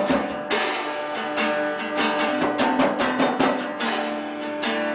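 Acoustic guitar strummed in a loose live jam, with repeated loud chord strokes.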